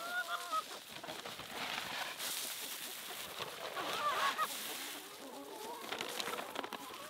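A flock of backyard chickens calling and clucking while they feed, with short pitched calls near the start and again about four seconds in, over scattered light taps.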